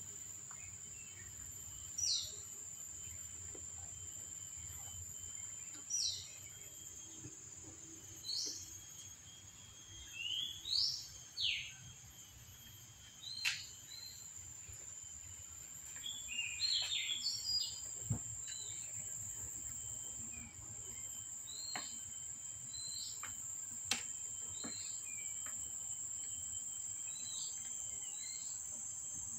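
A steady, high insect buzz with short falling bird chirps every few seconds, busiest in the middle, and a few sharp clicks.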